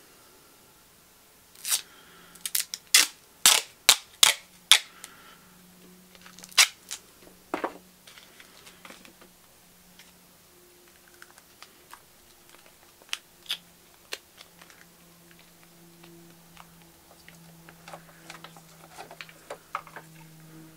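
Cloth duct tape being ripped off the roll: a quick run of about a dozen loud, sharp snaps in the first few seconds, two more a little later, then softer crackles and clicks as the strip is handled and wrapped.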